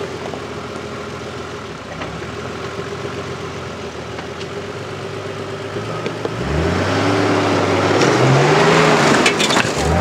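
Nissan GU Patrol ute's engine running at low revs as it crawls up a rutted dirt track, then revving up hard about six seconds in and rising and falling as it powers up a steep bank, with the tyres scrabbling through dirt.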